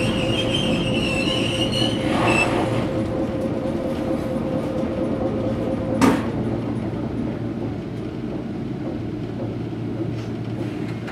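Inside a standing Toyohashi Railway 3500-series tram: the car's equipment hums steadily, with a high whine that dies away about two and a half seconds in. A single sharp knock comes about six seconds in.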